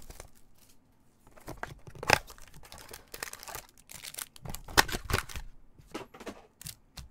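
Trading-card box and its cellophane-wrapped card packs being handled: crinkling wrappers, with scattered sharp clicks and taps as the packs are taken out and set down on a table, the loudest about two seconds and five seconds in.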